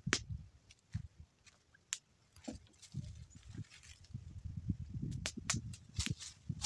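Sharp hammer knocks on a wooden beam, one right at the start and others about one and two seconds in, followed by footsteps over dry leaf litter and a few more knocks near the end, over irregular low rumbling sounds.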